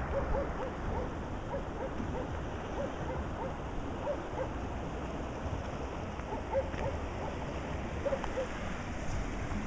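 Steady rush of floodwater flowing across a road, with many short hooting animal calls repeating throughout, often in pairs.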